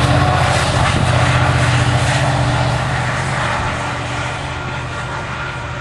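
The diesel engine of a Union Pacific EMD SD90/43MAC locomotive running with a steady low drone as it moves away, fading gradually.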